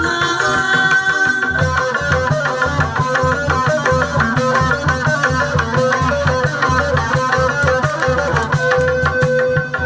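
Sundanese gamelan music in an instrumental passage: a hand drum plays a busy rhythm of low strokes under interlocking pitched melody lines, with one note held steadily near the end.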